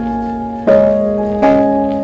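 Background music: soft sustained chords with a bell-like, keyboard tone, a new chord struck about a third of the way through and again just past two-thirds, each fading slowly.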